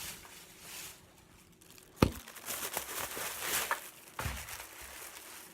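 Shopping bag rustling and crinkling as it is handled, with one sharp click about two seconds in.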